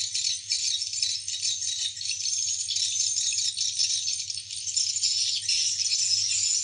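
Dense, continuous chirping and twittering of edible-nest swiftlets: a swiftlet lure-call played through tweeter speakers as a sound test, meant to draw swiftlets in to roost. A faint low hum runs underneath.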